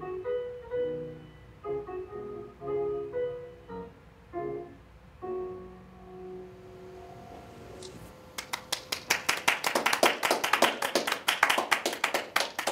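Grand piano playing the closing phrases of a solo piano piece, ending on a held chord that fades away. About eight seconds in, a group starts clapping.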